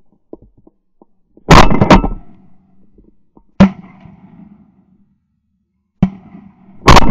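A volley of shotgun shots at ducks overhead: two close together about a second and a half in, one near the middle, then two more near the end, each a sharp crack with a short ringing tail.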